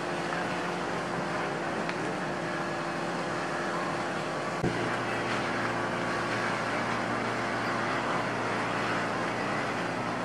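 Speedboat outboard motors running at speed across the lake, with the rush of spray and wake. A brief knock about four and a half seconds in.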